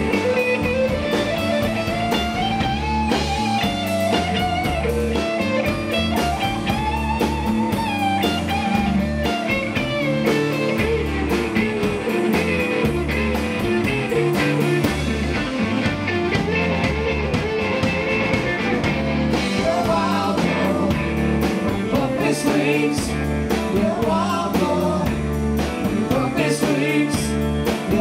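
Live rock band playing a song: two electric guitars, bass guitar and drums, with a wavering melody line over a steady rhythm.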